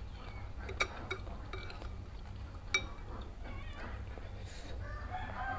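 Metal spoon and fork clinking against ceramic soup bowls a few times, sharp clinks with a short ring. Near the end a cat starts to meow.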